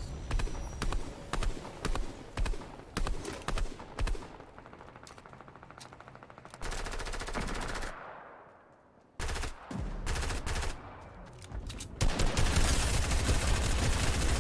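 Video-game gunfire: separate shots and short bursts, a fast even rattle of automatic fire in the middle, and a loud, dense stretch of firing near the end.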